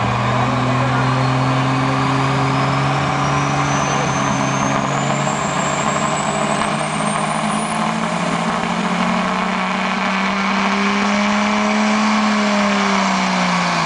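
Diesel pickup engine held at high, steady revs while hooked to the pulling sled, with a thin turbo whistle climbing steadily in pitch over the first several seconds. Near the end the engine note sags as the truck takes up the load.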